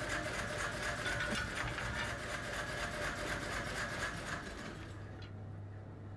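A workshop machine running with a fast, even rhythmic clatter and a steady whine. It stops about four and a half seconds in, leaving a low steady hum.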